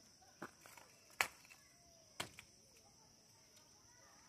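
Loose bricks knocking faintly a few times: four short, sharp clicks spread over a couple of seconds, the second the loudest.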